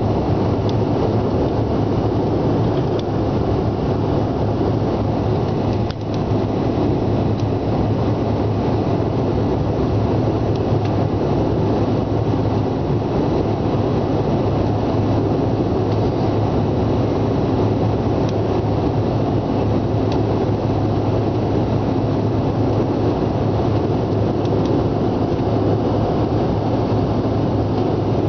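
Airliner cabin noise during the climb after takeoff: the steady roar of the jet engines and the airflow over the fuselage, with a constant low hum underneath.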